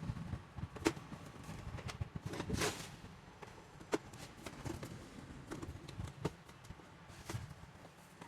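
Irregular light clicks and knocks, with a brief rustle about two and a half seconds in, from printer parts and tools being handled during disassembly.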